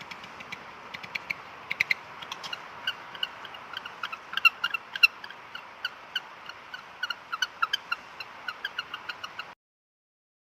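An animal's rapid, short, high chirps, several a second, over a steady hiss. They cut off suddenly near the end.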